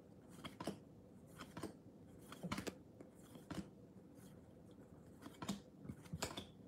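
2022 Bowman baseball cards being flipped through by hand, each card slid off the front of the stack to the back with a faint soft flick, about ten in an uneven rhythm.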